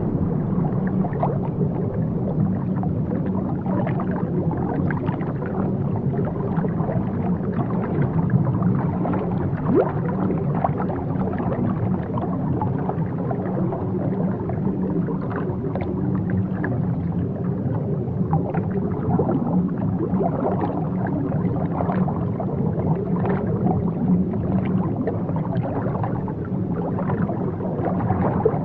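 Aquarium water bubbling and gurgling with many small irregular pops over a steady low hum, as from the tank's filter or air pump.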